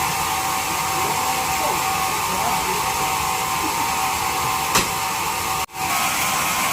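Sawmill bandsaw machinery running with a steady motor whine. A sharp click comes about five seconds in, and the sound breaks off for a moment just after it.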